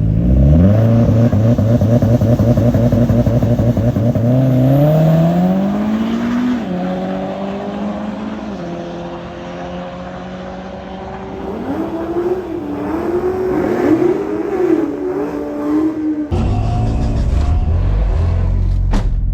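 Drag race car accelerating hard down the strip, engine pitch climbing with a gear change about six seconds in, then fading as it pulls away. Near the end the sound switches abruptly to an engine idling close by, with a sharp click just before the end.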